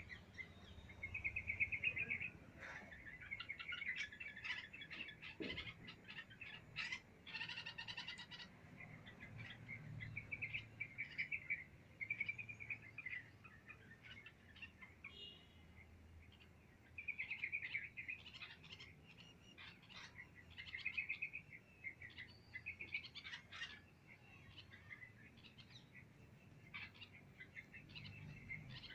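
Small birds chirping in repeated bouts of quick, short high notes, with brief pauses between the bouts.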